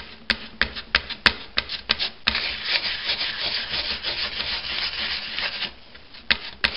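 A spreader scraping and stirring Bondo body filler with its red cream hardener on a metal mixing board: first a string of separate scrapes and taps, then about three seconds of fast, steady scraping, then a few sharp taps near the end.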